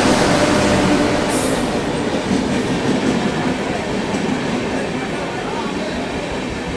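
An electric-locomotive-hauled express train running through the station at speed without stopping: a steady rush and rumble of its coaches rolling past close by. It is loudest as the locomotive clears and eases off gradually as the coaches follow.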